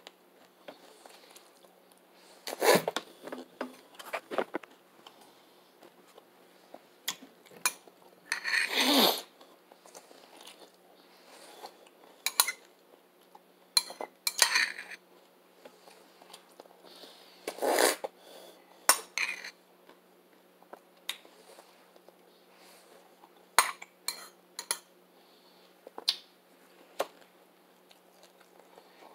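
A spoon clinking and scraping in a ceramic cereal bowl at irregular intervals, with chewing of cereal between scoops.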